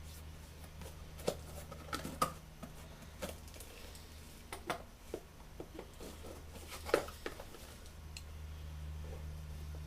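Scattered clicks, taps and rustles of a small parts package being opened and handled by hand, over a steady low hum.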